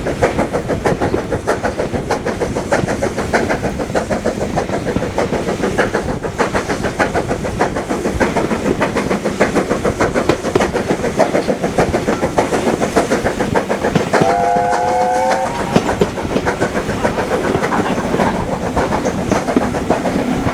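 A train running, with a steady rapid clatter, and one short whistle blast of several tones together, rising slightly in pitch, about two-thirds of the way through.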